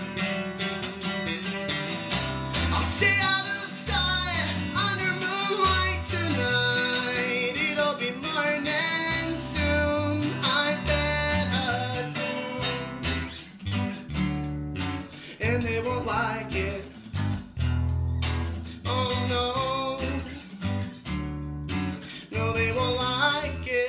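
Instrumental break of a folk-rock song: a Taylor acoustic guitar played together with a red Fender electric bass picking out a moving low bass line. The playing turns more clipped and stop-start in the second half.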